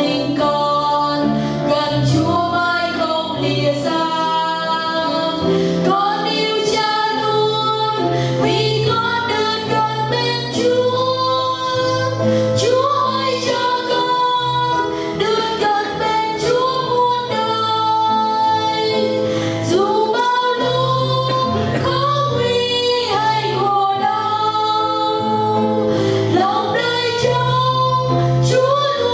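Two women singing a Vietnamese gospel hymn as a duet into microphones, over instrumental accompaniment with held bass notes.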